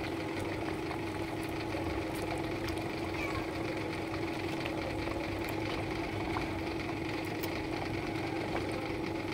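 Steady low hum of a pot of thick curry boiling on a stove, with faint scattered clicks.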